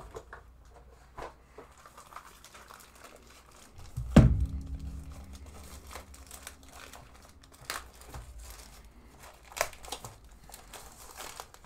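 Plastic bag crinkling and rustling as a keyboard is handled and slid out of its wrapping, with one loud thump about four seconds in as it is set down on the desk.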